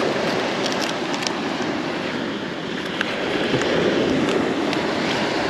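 Beach surf washing ashore with wind buffeting the microphone: a steady rush that eases a little midway and swells again, with a few faint clicks.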